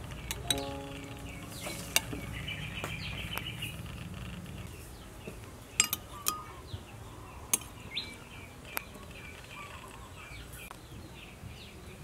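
Metal spoon scooping and clinking against a ceramic soup bowl and a small glass dipping bowl: a handful of separate sharp clinks, the loudest pair about six seconds in.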